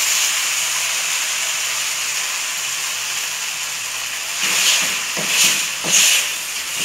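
Drained spaghetti sizzling as it is tipped into a pot of hot olive oil and garlic, a steady hiss that slowly fades. Near the end it is stirred with a fork in the aluminium pot, giving three short, louder bursts of sizzling with light scraping knocks.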